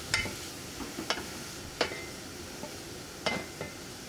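Sliced green onions sizzling in sesame oil while a wooden spatula stirs them in a stainless steel pot, knocking against the pot about five times, some knocks with a short metallic ring.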